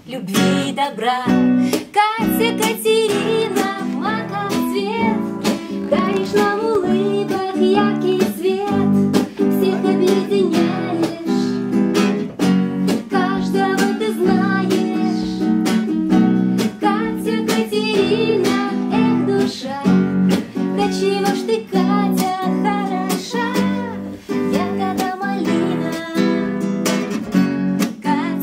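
A woman singing a song to her own strummed acoustic guitar.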